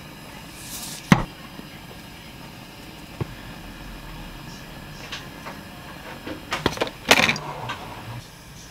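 Sharp clicks and light knocks of a metal spoon, sauce bottles and a mustard tube handled over a small ceramic dish on a countertop. There is one loud knock about a second in, a small tap around three seconds, and a quick cluster of clicks around seven seconds.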